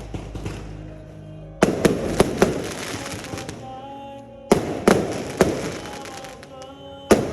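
Fireworks bursting: four sharp bangs, each followed by a run of quick crackling reports.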